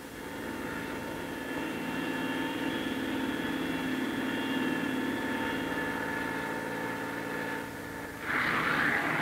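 F-104 Starfighter's General Electric J79 turbojet with a steady high whine as the fighter taxis; about eight seconds in it breaks suddenly into a loud jet roar, the engine run up to full power for the takeoff.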